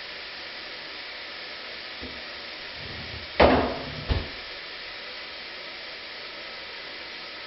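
Two sharp knocks of small objects being handled at a bathroom sink, less than a second apart a little past the middle, the first louder with a brief ring, over a steady hiss.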